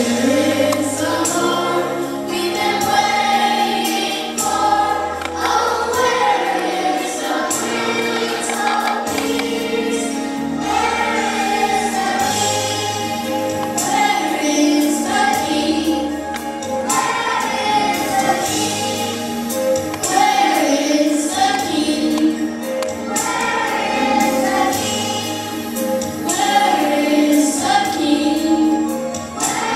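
A choir singing a song with instrumental accompaniment: a moving bass line under the voices and a steady percussive beat.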